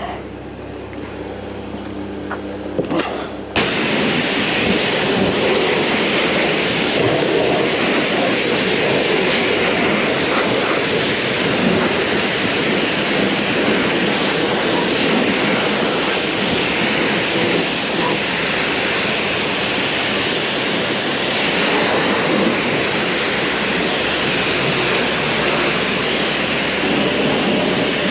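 High-pressure washer lance spraying water against a tractor's bodywork and wheels: a loud, steady hiss that comes on suddenly about three and a half seconds in, after a few seconds of a low steady hum with a couple of knocks.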